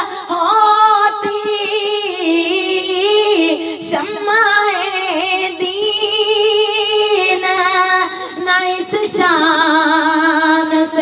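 Naat, an Urdu devotional poem in praise of the Prophet Muhammad, sung by a solo female voice, drawing the line out in long, wavering held notes that glide from pitch to pitch.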